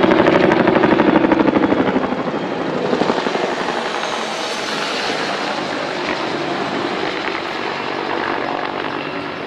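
Low-flying aircraft passing over, with a rapid rhythmic chopping that is loudest in the first two seconds and then eases into a steady rushing drone.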